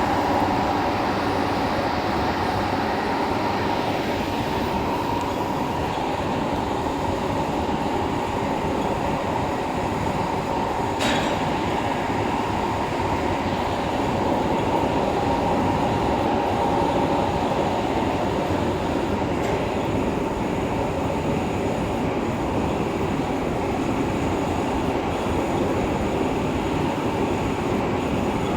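Large vertical lathe running and cutting metal: a steady, loud machining noise with a high ringing tone over it, and one brief sharp tick about eleven seconds in.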